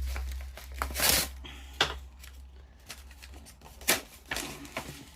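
Hands handling sticker packets and stickers: scattered light clicks and taps, with a brief rustle about a second in, over a low steady hum.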